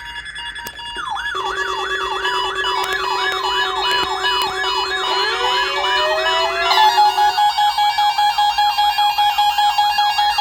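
Several NOAA weather radio receivers sounding their alert alarms together, set off by the weekly test signal: overlapping warbling siren tones sweeping about three times a second over steady beeping tones. A rising wail joins around five seconds in.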